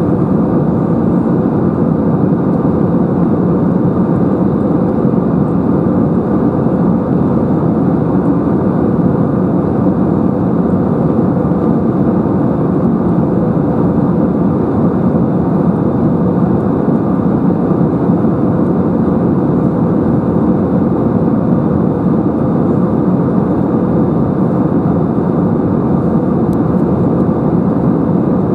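Steady cabin noise inside an Airbus A320-214 in climb: the drone of its CFM56-5B turbofans and the rush of air, heard from a window seat over the wing. It is loud and unchanging, with most of its weight low to mid in pitch.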